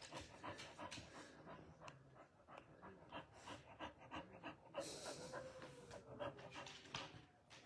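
A dog panting close by: a run of quick, faint breaths.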